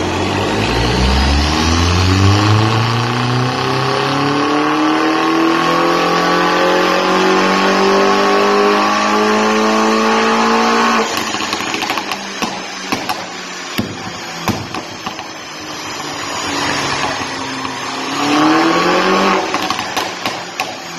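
Mini Cooper S JCW R56's 1.6-litre inline-four engine, on a modified stock exhaust, doing a full-throttle dyno pull with the revs climbing steadily for about ten seconds. The throttle then shuts suddenly and the exhaust crackles as the revs fall, and there is one short rev and drop near the end.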